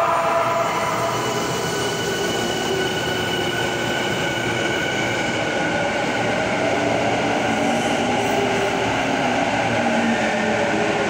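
Commuter train pulling into an underground station platform: a steady, loud rumble of wheels on rail, with steady whining tones over it.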